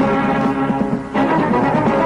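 Orchestral soundtrack music: held chords, changing to a new chord about a second in.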